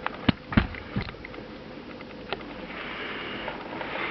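A few sharp knocks and clicks of a Bang & Olufsen Beolink 7000 remote control being handled on its charging mount: three in the first second, one more about two seconds in. A soft breathy hiss follows near the end.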